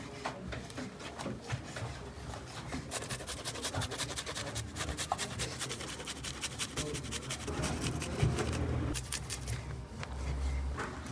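Garlic being grated on a hand grater over skewered raw beef: a fast run of rasping strokes that starts about three seconds in and stops near nine seconds, over a steady low hum.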